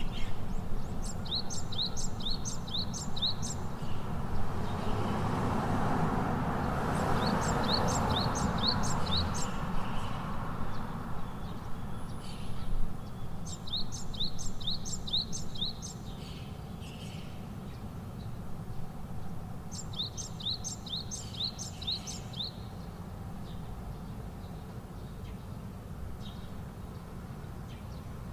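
A songbird singing the same short phrase over and over, a quick run of about six high, down-sliding notes, roughly every six seconds. Under it is a steady low background noise that swells for a few seconds a few seconds in.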